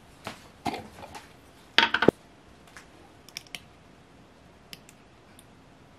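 Condiment bottles being handled over a plate at a table: scattered light clicks and taps, with a louder clatter of several knocks about two seconds in.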